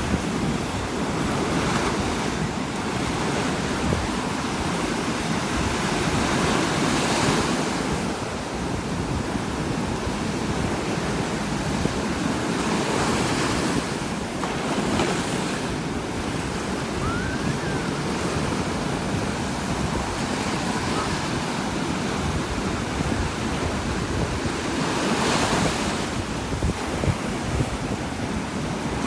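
Heavy ocean surf breaking on a beach: a continuous rushing wash, swelling louder several times as bigger waves crash.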